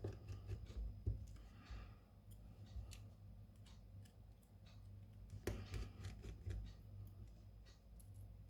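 Scattered small clicks and taps of hand tools and parts being handled on a phone under repair, some grouped together about two thirds of the way in, over a steady low electrical hum.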